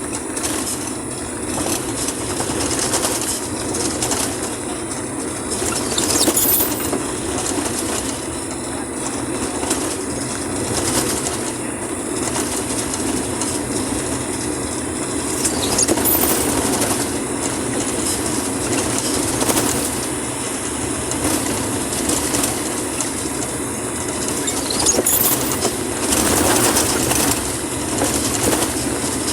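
Steady rumble of a vehicle travelling on a wet, muddy dirt road, with road and tyre noise.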